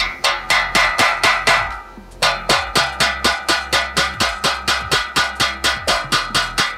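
Rapid metal-on-metal tapping, about five taps a second with a short pause about two seconds in and a ringing after each tap: pliers knocking a condenser fan blade's hub down the motor shaft.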